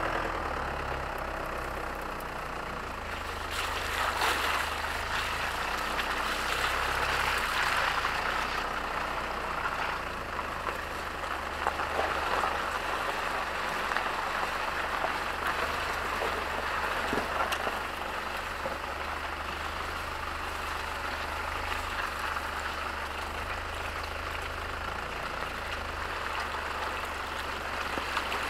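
Mitsubishi Pajero V60's 3.2 DID turbodiesel running steadily under the rushing noise of a tyre rolling over grass and gravel, heard close to the wheel, with scattered ticks of grit and stones. The tyre noise is loudest between about four and nine seconds in.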